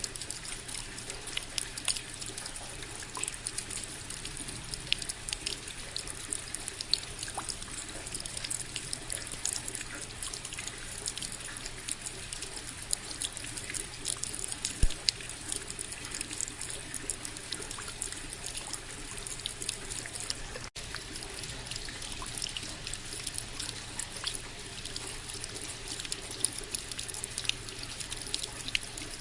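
Steady rain: an even hiss of falling water thick with small drop ticks. It breaks off for an instant about two-thirds of the way through.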